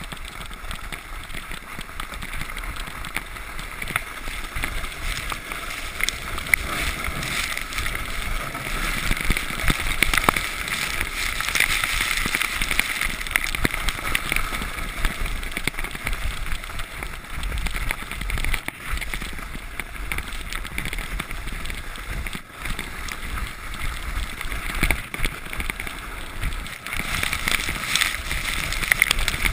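Merikan missile sled hissing and scraping over packed snow as it slides at speed, with wind rumbling on the microphone. The sound grows louder after the first few seconds as the sled picks up speed.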